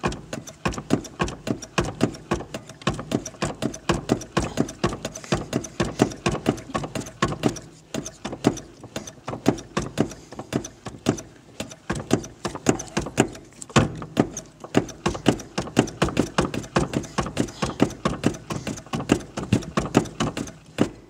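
Clutch pedal of a Nissan pickup being pumped rapidly by foot, clacking several times a second in a steady rhythm. The pumping builds hydraulic pressure in a newly fitted clutch master cylinder before the clutch is bled.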